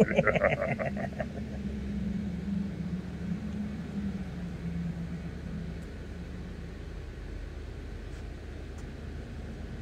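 A low, steady hum that fades away over several seconds, over a low background rumble. In the first second, the tail of a voice's cheer trails off in a warbling echo.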